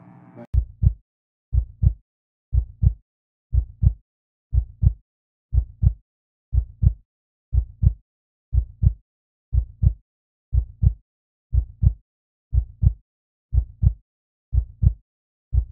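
Heartbeat sound effect: a steady run of paired low thumps, about one pair a second.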